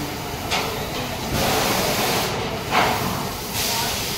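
Factory floor noise: a steady hiss of machinery and air, broken by several short rushes of noise, the loudest a little under three seconds in.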